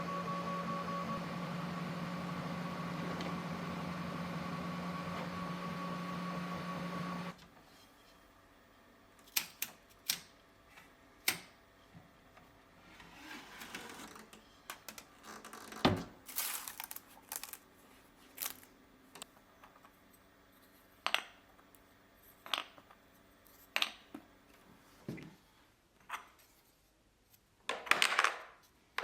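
A 3D printer runs with a steady hum for about seven seconds and then stops abruptly. After that come scattered light clicks and taps of small printed parts and magnets being handled.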